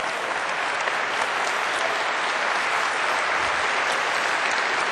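A large seated audience applauding, the clapping swelling as it begins and then holding steady as a dense patter of many hands.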